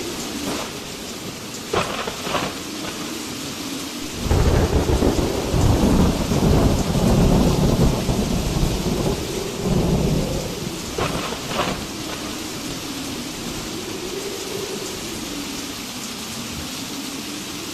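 Thunderstorm: steady heavy rain, with a long rolling rumble of thunder from about 4 to 10 seconds in and a few sharp cracks. Through it, wind howls, rising and falling in pitch.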